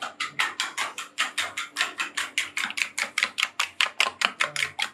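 Egg being beaten with a metal spoon in a ceramic bowl: the spoon clicks against the bowl quickly and evenly, about six times a second, then stops abruptly near the end.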